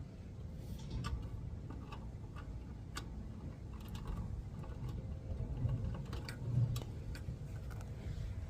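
Scattered light clicks and taps from hands working on the unit's electrical wiring, over a steady low rumble.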